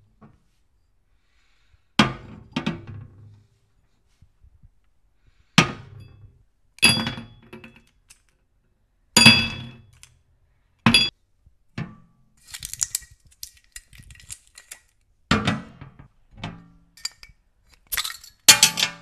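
A string of separate glassy knocks and clinks, about ten in all, from glass bottles and a heavy tumbler being set down on a mirrored bar top, with ice clinking in the tumbler. A patch of fine, fast clicking runs between the knocks in the middle, and a burst of clinks comes near the end as the glass Coca-Cola bottles are handled.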